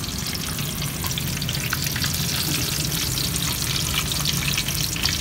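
Skewered shrimp and squid balls deep-frying in a wok of hot oil: a steady crackling sizzle made of many small pops.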